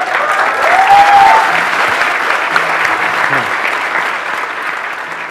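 Large seated audience applauding, loudest about a second in and then slowly dying away.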